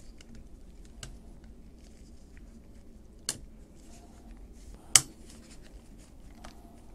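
Small clicks and light handling noise as a spring and the trigger switch are fitted into the plastic housing of an AEG FSPE 60 jigsaw, with two sharper clicks about three seconds in and, louder, about five seconds in.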